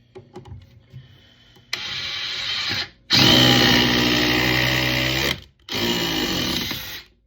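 DeWalt DCF870 quiet hydraulic impact driver running in three pulls of the trigger, the middle one the longest and loudest, driving a 4-inch TimberLOK screw; its pitch drops as it stops near the end.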